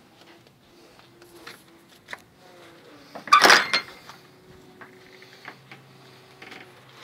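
Wooden pigeon-loft door with a wire-mesh panel being opened, a loud rattling scrape about three and a half seconds in, with lighter knocks and clicks before and after.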